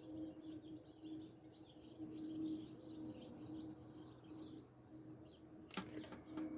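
Small songbirds chirping and twittering over a steady low hum, with a few sharp clicks near the end.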